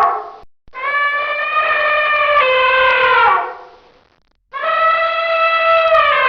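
Elephant trumpeting: two long calls, each lasting about two and a half to three seconds and sliding down in pitch at the end, with a short gap between them.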